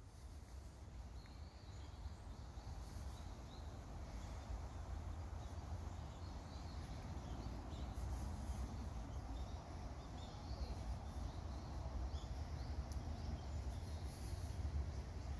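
Outdoor garden ambience: a steady low rumble under faint, scattered small bird chirps.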